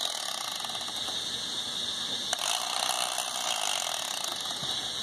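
Electric fillet knife running, its serrated twin blades buzzing steadily as they saw through a catfish's belly, with one sharp click about two seconds in.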